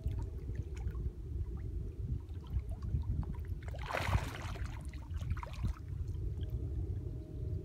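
Spawning carp splashing at the surface of shallow water: one loud splash about four seconds in and a smaller one a second or so later.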